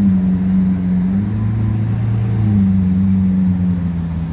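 Lamborghini Aventador's V12 engine running at low revs as the car creeps forward: a low, steady note that rises and dips only slightly in pitch.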